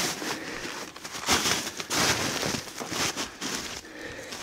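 Footsteps crunching in snow with rustling, a step roughly every half second to a second.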